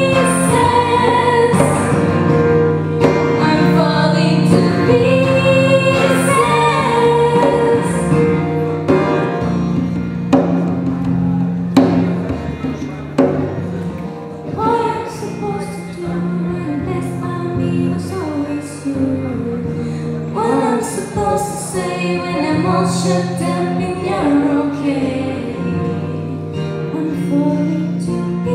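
Live acoustic pop performance: female voices singing a melody over a strummed steel-string acoustic guitar, with a djembe played by hand keeping the beat.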